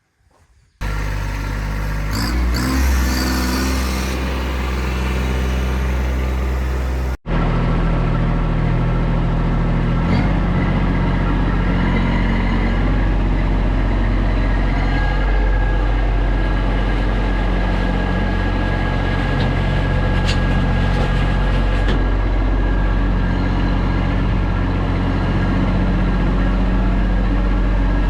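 Kubota B2301 compact tractor's three-cylinder diesel engine running steadily at working speed, starting about a second in. The sound cuts out for an instant about seven seconds in, then runs on.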